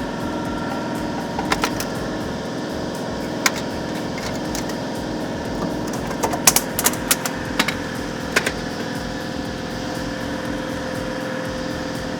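A steady motor hum with scattered sharp metallic clicks and taps, the loudest cluster about halfway through: tools working on the clutch and pressure plate under the car.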